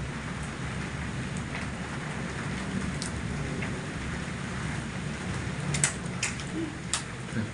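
Steady rain during a thunderstorm, with a low rumble underneath and a few sharp taps near the end.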